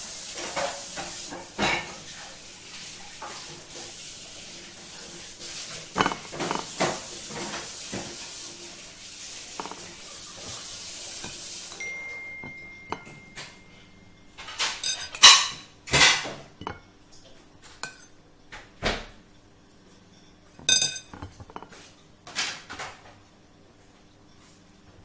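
Hands rolling stuffed grape leaves on a plate: scattered crinkles, taps and clinks against the plate. A steady hiss runs under the first half and cuts off about halfway.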